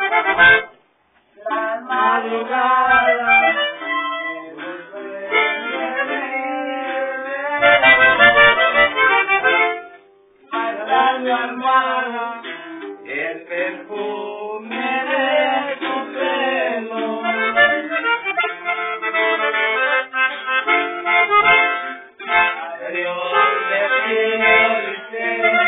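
A band playing a song, with accordion prominent. The music cuts out briefly about a second in and again around ten seconds in.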